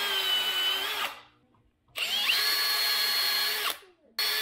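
Cordless drill boring into a small wooden drawer pull, running in three bursts: one that stops about a second in, a longer one starting about two seconds in, and a brief one near the end. Each burst rises in pitch as the motor spins up, then holds a steady whine.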